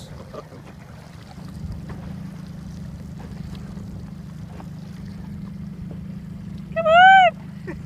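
Small boat's motor running steadily under wind and water noise. Near the end comes one short, loud, high-pitched call that rises and then falls.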